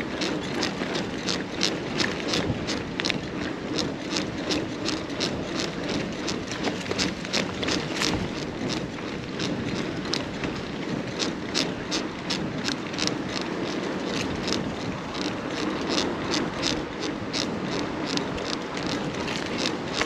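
Mountain bike riding over a rough path: steady tyre noise with irregular clicks and rattles from the bike, a couple or more each second.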